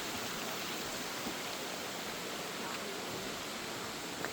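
Steady, even rushing of flowing water, with one faint click near the end.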